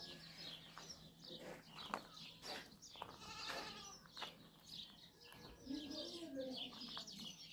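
Goats bleating: a bleat about three and a half seconds in and a lower, wavering call about six seconds in.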